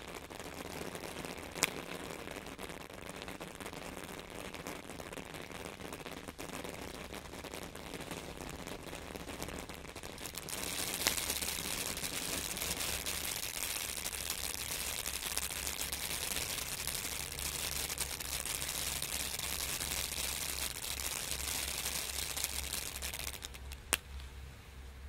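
Brothers Dustup 200 g fountain firework spraying sparks with a steady rushing noise. It gets louder about ten seconds in and eases off near the end, and three sharp pops stand out along the way.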